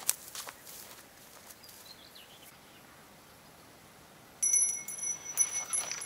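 A few light clicks at the start, then from about four and a half seconds in a small bell jingling in short, broken rings, amid handling clicks and rustles.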